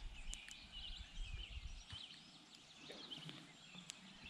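Faint outdoor ambience of small birds chirping, with a few light clicks and a low rumble underneath.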